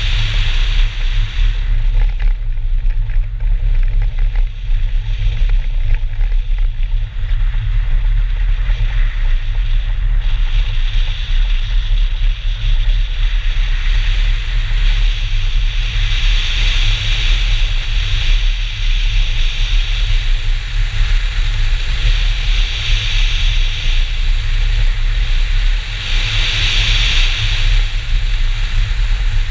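Wind buffeting the microphone of a camera mounted outside a BMW 320 racing at speed on a snow track. It makes a heavy, steady low rumble, with a hiss of tyres and road noise that swells several times. The engine is mostly buried under the wind.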